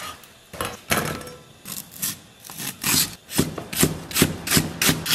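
A Chinese cleaver chopping scallion and then ginger on a thick round wooden chopping block: a series of sharp knocks of the blade on the wood, about two or three a second.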